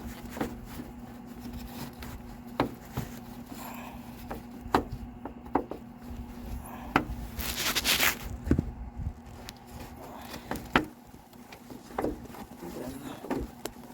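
Scattered sharp clicks and knocks of hard plastic trim being handled and pressed into place around the headlight housing, with a brief rustling scrape about seven and a half seconds in, over a steady low hum.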